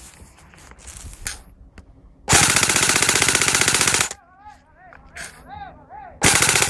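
Airsoft gun firing a rapid full-auto burst of nearly two seconds, then a second short burst near the end. Between the bursts there is a row of short rising-and-falling chirps.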